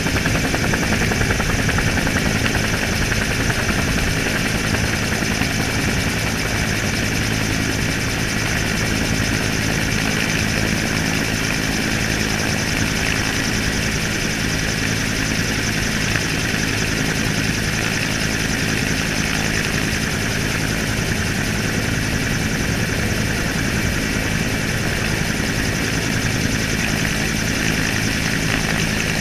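Helicopter in flight, its rotor and turbine engine running steadily, heard from a camera mounted beside the landing skid.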